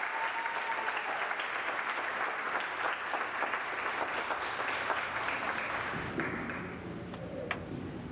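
Audience applauding, the clapping thinning out and fading about six seconds in, leaving a low steady rumble.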